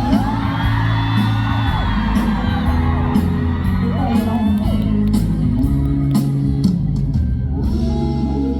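Live band music in a large hall with a steady bass line and beat, while fans shriek and whoop over it.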